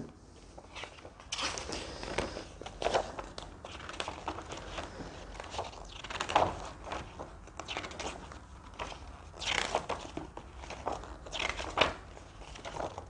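Thick paper of a board-game rulebook and its inserts rustling and crinkling as the sheets are handled and leafed through, in irregular short rustles.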